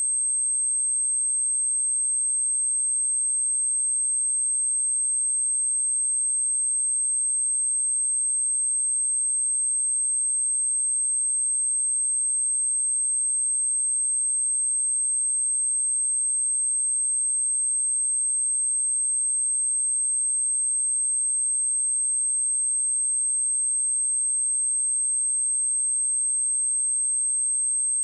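A pure, steady, high-pitched sine-wave test tone at 8356 Hz, held at one pitch and one level without a break.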